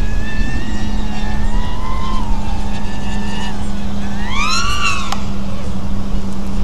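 FPV quadcopter's brushless motors whining, the pitch wandering with throttle, then a sharp rising-and-falling surge about four seconds in as the throttle is punched. Heavy wind rumble on the microphone underneath.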